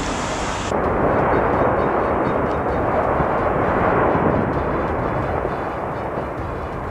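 Explosive volcanic eruption venting ash and glowing fragments: a continuous low, rushing rumble that grows louder and more muffled about a second in.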